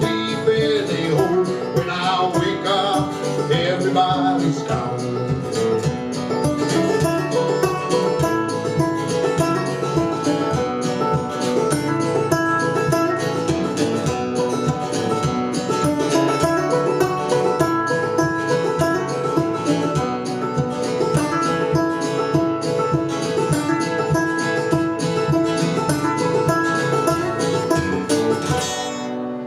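A live band plays an instrumental passage of a country-style song, with plucked string instruments to the fore. The music stops right at the end.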